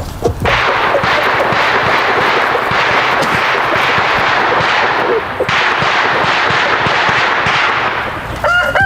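A loud, steady rushing hiss, broken for a moment about halfway through, then a rooster starts crowing right at the end.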